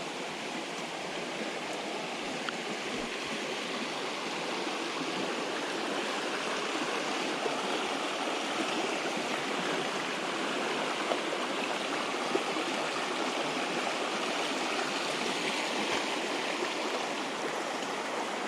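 A storm-swollen creek rushing: a steady sound of swift-running water.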